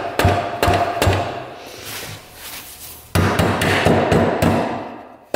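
Rubber mallet pounding on the end of a shaft in a Honda Z50 engine crankcase to drive it through and split the case halves. Quick, even blows come about three a second, each with a short ringing tone. There is a pause of about a second and a half in the middle.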